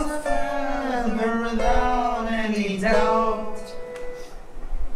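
Singing from a student's original narrative song: three long held notes in a slowly falling line, changing about every second and a half, which stop about four seconds in.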